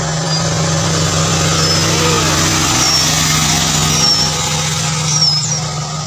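Short, high bird chirps repeated about once a second, more often near the end, over a louder steady low hum and rushing noise.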